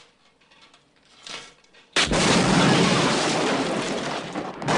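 Shoulder-fired anti-tank rocket launcher firing: a sudden blast about two seconds in, then a loud sustained roar that swells again near the end.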